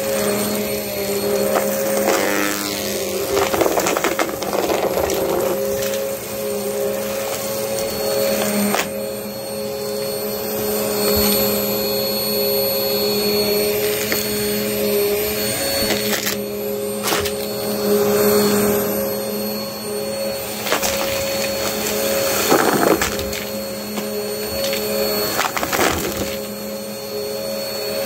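Small upright vacuum cleaner running steadily on carpet, its motor giving a constant hum with a high whine, and scattered short clicks.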